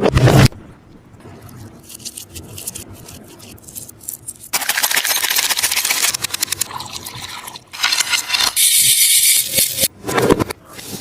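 Taba squishy (a tape-wrapped squishy toy) being squeezed and handled, the tape crinkling and crackling. A short loud burst comes right at the start, then faint crackles, then long dense spells of crinkling through the middle, and another burst near the end.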